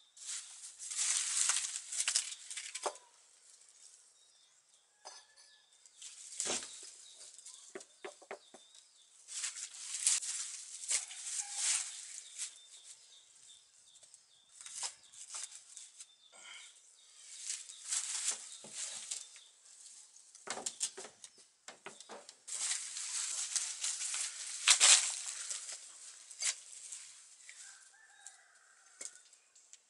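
Dry leaf litter and wood chips crunching and rustling underfoot, with concrete blocks being set down and scraped into place against a brick stove, in irregular bursts of a few seconds with a few sharp knocks.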